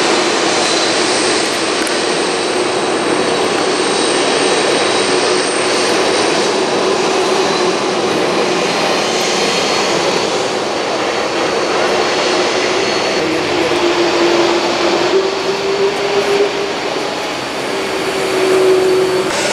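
Large jet aircraft's turbofan engines running close by: a steady broad roar with a thin high whine over it, and a lower hum that rises slightly about two-thirds of the way through.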